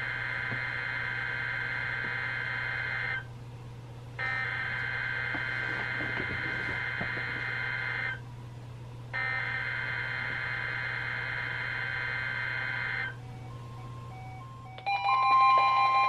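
Three bursts of a NOAA Weather Radio SAME digital header, the warbling data burst that opens the Required Weekly Test, each about four seconds long with a second's pause between, played through weather radio speakers. Near the end, the weather radios start sounding their alert beeps.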